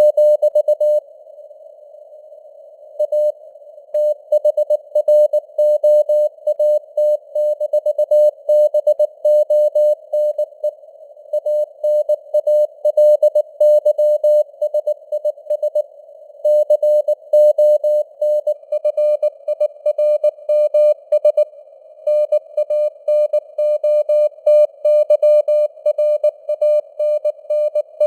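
Morse code (CW) sent at 19 words per minute as a single mid-pitched tone keyed on and off in dots and dashes, heard through a narrow band of simulated radio static. There is a pause of about two seconds near the start, and the keying then runs on without a break.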